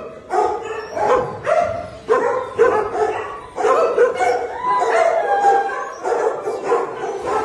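Dogs barking again and again, roughly two barks a second, with some calls drawn out into longer, higher whines around the middle.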